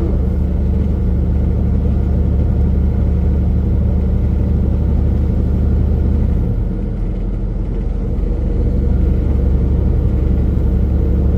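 Semi-truck driving at speed: a steady low engine drone and road rumble. It eases slightly for a moment about two-thirds of the way through, then picks back up.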